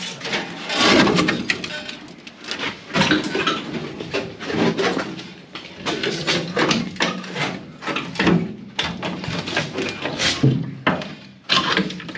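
Irregular knocking, clanking and scraping of steel sheet-metal panels as a replacement trunk floor with its wheel tubs is wrestled into a car body, a tight fit where the panel is caught and won't seat.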